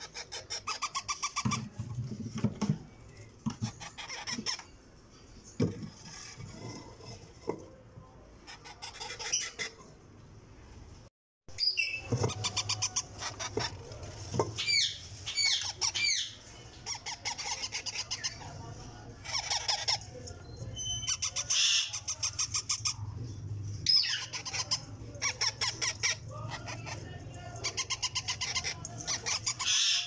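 Parakeet chicks calling: series of rapid, stuttering high squeaks repeated again and again, some sliding up and down in pitch, with a short break about eleven seconds in.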